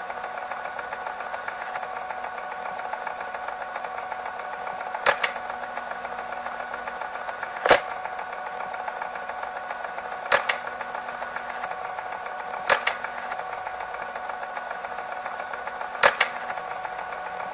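Film projector whirring steadily, with a sharp click every two to three seconds.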